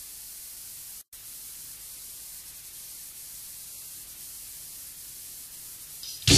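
Steady tape hiss in the silent gap between songs on a 1990 cassette demo, cutting out for a split second about a second in. The next death metal song crashes in abruptly at the very end, with distorted guitars and drums.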